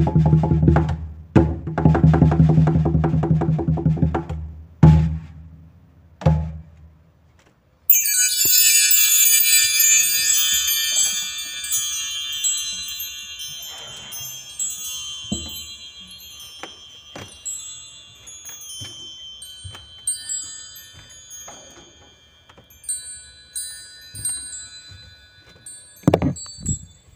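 Drums playing a steady rhythmic pattern for about five seconds, then two single hits. About eight seconds in, a burst of wind chimes sets off, ringing high and slowly dying away over many seconds, with scattered soft knocks and two low drum hits near the end.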